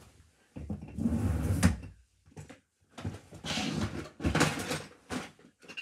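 Plastic toys being handled on the floor: two bursts of rustling and clattering, each with a sharp knock, and a few lighter taps between and after.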